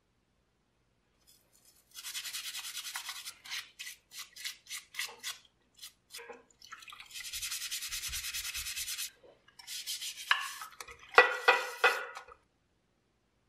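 Aluminum syringe parts being scrubbed by hand in soapy water in a glass dish: runs of fast back-and-forth rubbing strokes, with heavier, louder strokes near the end, stopping about twelve seconds in.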